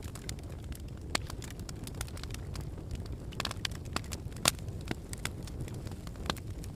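Campfire burning, crackling with irregular sharp pops, the loudest about four and a half seconds in, over a steady low rumble.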